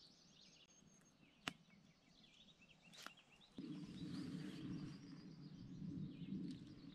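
Faint lakeside ambience with distant birds chirping. A single sharp click comes about a second and a half in, and a low steady rumble joins a little past halfway.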